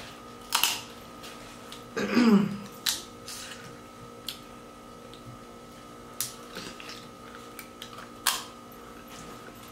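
Scattered sharp clicks and snaps of people eating boiled blue crab, shrimp and corn by hand, with a brief hummed voice sound about two seconds in.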